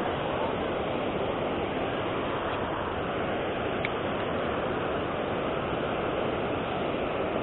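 Steady rush of water pouring over a low river weir.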